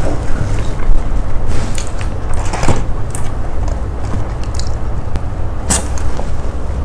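Paperboard takeaway food box being folded shut and pressed closed, giving a few crinkles and taps, over a steady low rumble.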